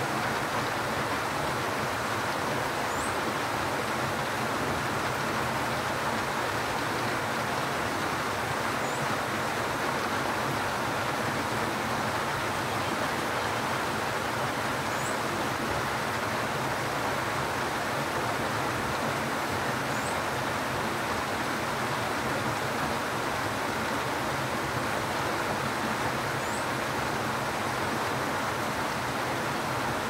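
Steady rain falling, an even constant hiss. A faint, high, short chirp comes every five or six seconds.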